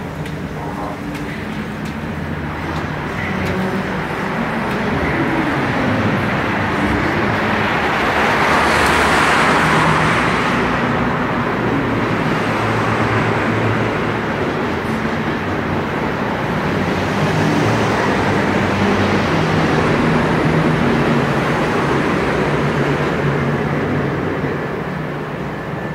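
Road traffic noise, swelling as vehicles pass about a third of the way in and again past the middle.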